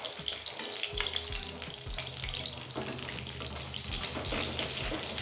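Chapila fish frying in hot mustard oil in a metal kadai, a continuous crackling sizzle. A steel spatula scrapes the pan and knocks sharply against it once, about a second in, as the fried fish are lifted out.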